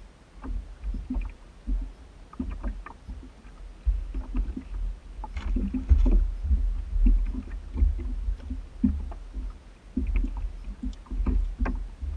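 Small boat on water: low rumble and water lapping, with many short irregular knocks and clicks against the hull.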